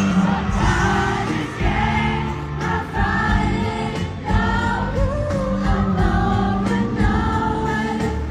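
Pop ballad music with a sung melody over a band accompaniment, played through the sound system at a concert sound check.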